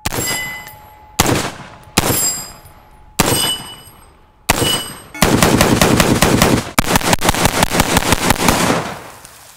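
Springfield Armory SAINT Victor .308 AR-10 pistol, a short-barrelled .308 semi-automatic, firing: five single shots a second or so apart, then two long strings of rapid fire.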